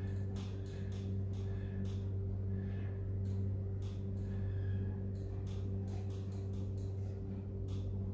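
A cloth wiping a glass tabletop, with irregular light taps and clicks as small objects on it are handled and moved, over a steady low hum.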